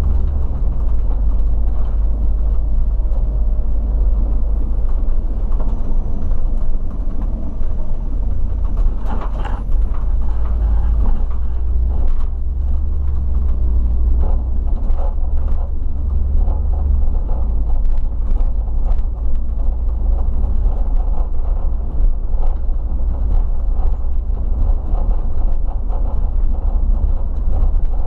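Regional coach under way, heard from the driver's seat: a steady low engine and road drone, with scattered small rattles and clicks throughout.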